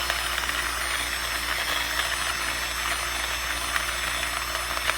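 Electric motor of a portable burr coffee grinder running steadily as it grinds coffee beans: an even whirring hiss with occasional small ticks.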